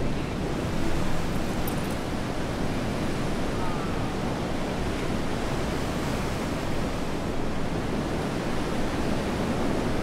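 Steady rush of wind and ocean surf on a stormy coast, with wind buffeting the microphone.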